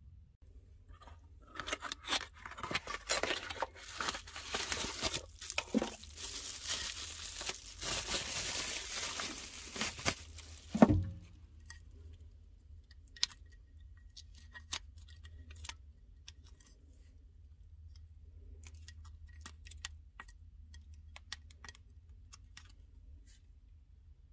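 Scratchy rustling and tearing for most of the first ten seconds, ending in a loud thump about eleven seconds in. Then scattered light clicks and taps from handling a small rechargeable LED camping lantern.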